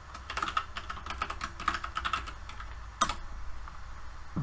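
Typing on a computer keyboard: a quick run of keystrokes for about two and a half seconds, then one louder click about three seconds in.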